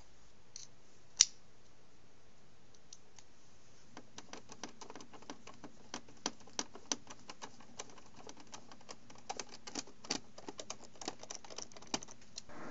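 Rapid, irregular clicking and ticking of a metal screwdriver bit turning a screw in the plastic underside of an original Xbox console, starting about four seconds in. A single sharp click about a second in.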